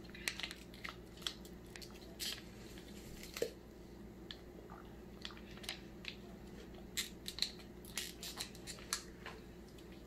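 Plastic fruit squeeze pouch crinkling and clicking in the hands as it is squeezed and sucked from, in faint, irregular little crackles.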